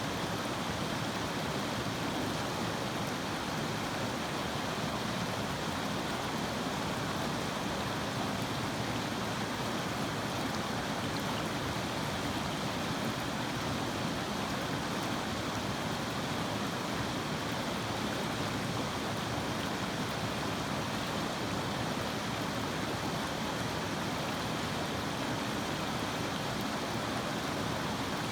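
River water flowing: a steady, even rush with no separate splashes or other events.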